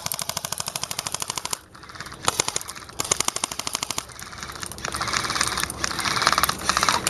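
Airsoft electric guns firing on full auto in several bursts of rapid clicking shots. The longest burst opens the stretch, shorter bursts follow, and a denser burst comes near the end.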